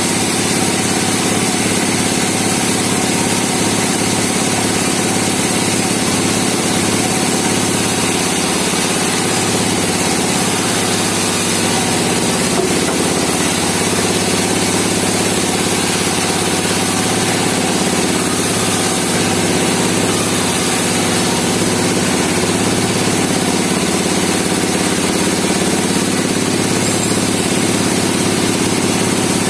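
Sawmill engine running steadily at a constant speed.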